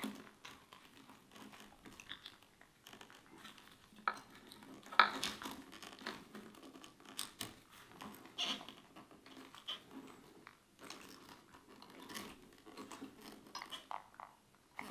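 Handling noise of wiring being worked by hand into a tight rubber grommet: scattered scratching and rubbing of cable, rubber and plastic, with occasional sharp clicks, the loudest about five seconds in.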